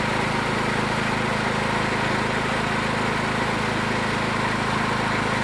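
Small gasoline engine running steadily at constant speed while being tested on a dynamometer.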